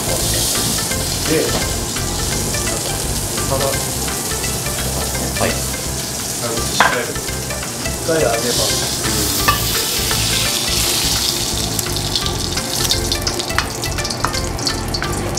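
Diced pork belly sizzling as it stir-fries in a wok over a gas flame, a steady hiss with a few sharp clicks of the spatula against the pan.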